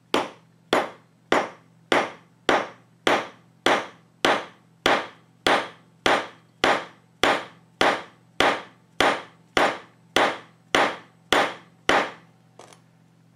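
About twenty steady, evenly spaced hammer blows, roughly one every 0.6 seconds, on a wooden-handled thin chisel, each a sharp knock with a brief ring. The chisel is being driven into the epoxy joint between a knife's wooden handle scales and its steel tang to split the scales away.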